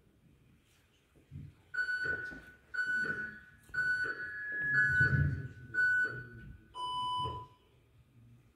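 Quiz game countdown timer beeping once a second for five seconds, then a longer, lower tone of about half a second: the signal that the teams' thinking time is up.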